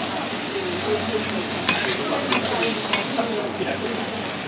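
Fried noodles, cabbage and meat sizzling on a hot iron teppan griddle. Metal spatulas clink and scrape against the plate a few times as the food is lifted and piled onto the batter crepe.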